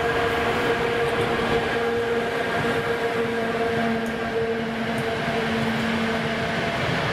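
PKP Cargo ET22 electric locomotive hauling a train of Talbot-type hopper wagons past: a steady rumble of wagon wheels on the rails, with a steady whine held through most of it.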